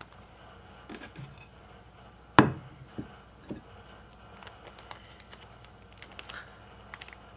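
Small clicks and rustles of a vacuum-sealed sous-vide steak bag being cut open and handled, with one sharp knock about two and a half seconds in and two softer knocks just after.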